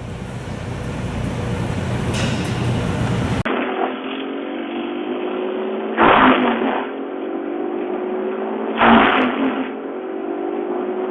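Wood chipper running under load. A steady engine note rises slightly, with loud noisy bursts about six and nine seconds in as wood goes through. The sound changes abruptly about three and a half seconds in where the footage switches to another shot.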